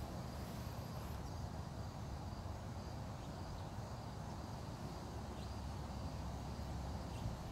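Outdoor ambience: a steady low rumble with faint insects chirping on and off, high-pitched, above it.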